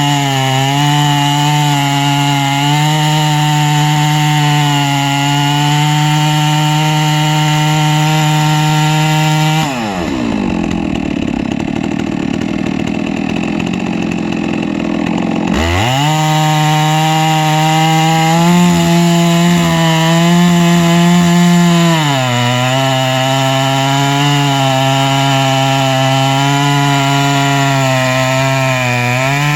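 Chainsaw engine running at full revs under load, ripping a log lengthwise in a chainsaw mill. Near the middle the revs fall away to a low, rough running for about six seconds, then climb back to full speed and the cut goes on, the pitch sagging slightly a while later.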